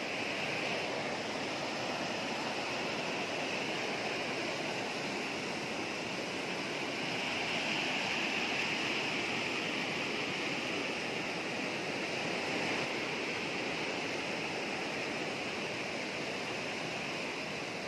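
Fast-flowing hill stream cascading down a channel in granite rock: a steady rush of white water.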